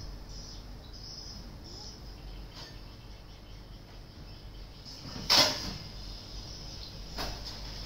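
Faint, short high-pitched chirping of insects repeating in the background, with one short, loud rush of noise about five seconds in and a softer one near the end.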